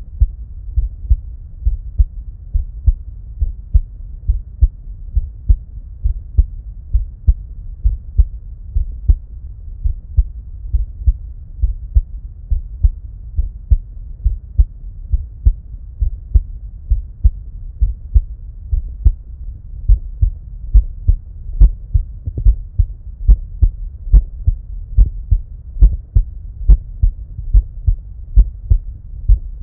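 Human heart sounds picked up through an Eko DUO digital stethoscope: a regular lub-dub heartbeat of dull, low thumps keeping an even rhythm over a low hum.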